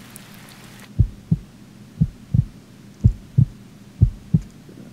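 Heartbeat sound effect: four low double thumps (lub-dub), about one a second. Before them, rain falls for the first second and then cuts off.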